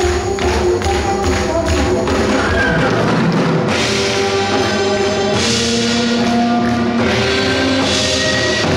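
Live Korean traditional fusion (gugak) ensemble music: held melodic instrument notes over a steady drumbeat, the music growing fuller and brighter about four seconds in.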